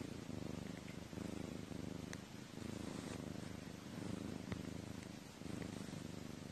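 House cat purring right at the microphone, a steady low rumble that swells and eases with each breath, about every second and a half.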